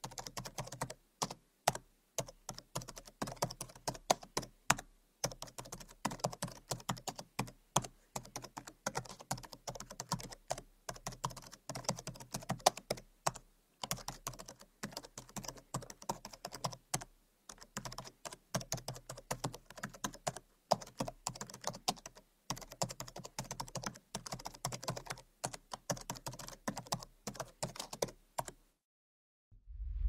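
Typing sound of keys being struck: rapid, irregular clicks, several a second, which stop suddenly a little before the end.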